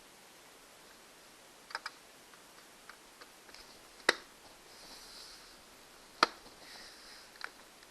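Small laptop screws and parts handled on a work surface: scattered light ticks and clicks, with two sharper clicks about four and six seconds in.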